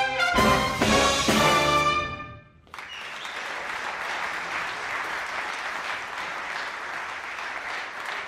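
A big band with brass, saxophones and rhythm section plays the closing chords of a swing arrangement, ending about two seconds in. After a short pause the audience applauds steadily.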